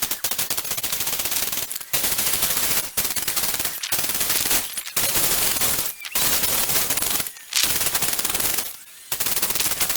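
Power drill boring holes in a plastic bucket: a loud, fast rattle in about seven runs of one to two seconds, each stopping briefly before the next.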